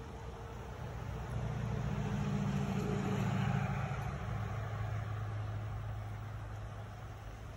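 A motor vehicle passing by, growing louder and then fading away, its engine note dropping in pitch as it goes past.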